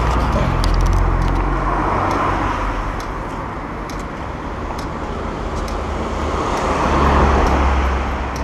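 Cars passing close by on the road, their tyre and engine noise swelling and fading one after another, loudest about seven seconds in.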